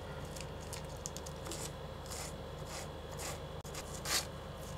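Kitchen knife slicing through rolled-up spinach leaves against a wooden cutting board: faint, irregular cutting strokes, the loudest about four seconds in.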